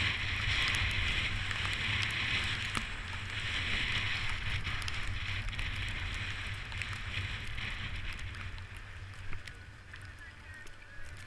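Wind buffeting the microphone over the hiss of skis or a snowboard sliding on snow, in waves, fading over the last few seconds as the ride slows down.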